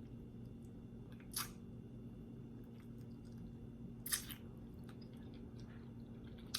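A person chewing food close to the microphone, with faint small mouth clicks and two short, louder eating noises about a second and a half and four seconds in, over a steady low hum.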